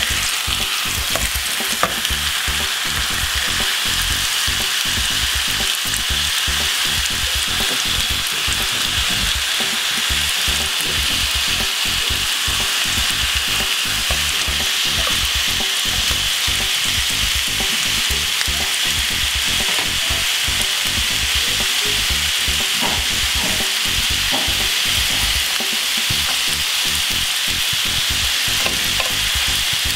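Beef burger patties and bacon strips frying in an oiled ridged grill pan: a steady sizzling hiss, with a few faint clicks of the tongs.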